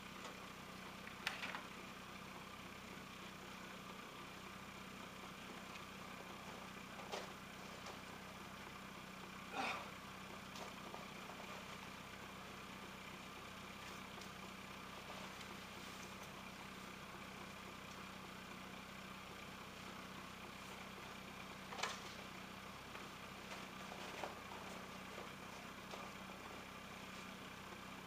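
A faint, steady hum of an idling engine, with a few short knocks and clicks scattered through it.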